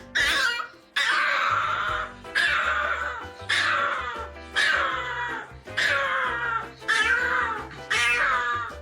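A cat yowling over and over, about one long call a second, over background music.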